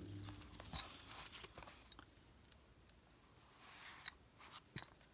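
Faint handling of a leather pocket planner: soft rustles and a few small metallic clicks from its six silver binder rings being worked open, the clearest about a second in and a couple more near the end.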